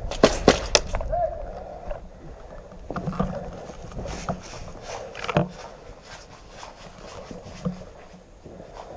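A quick string of sharp airsoft gun shots in the first second, then footsteps crunching through snow with gear rustling as the player moves.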